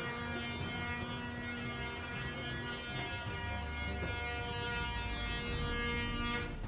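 A steady, droning hum made of several held tones, dropping out briefly at the very end.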